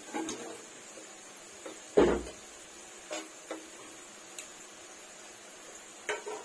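Gujiyas deep-frying in hot oil in a steel kadhai: a faint steady sizzle with scattered sharp pops and clicks, and one louder knock about two seconds in.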